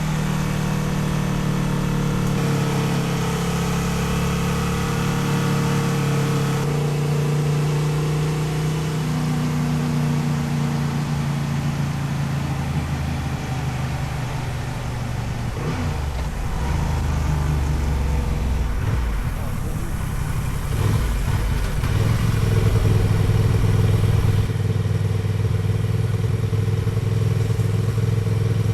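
Honda XL750 Transalp's parallel-twin engine running under way on a ride, its note holding steady and then shifting to a new pitch several times as the speed changes.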